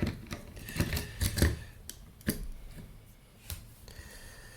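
Clicks and knocks of hands handling the metal chassis and circuit boards of an avionics display unit being taken apart: a quick cluster in the first second and a half, then two single knocks.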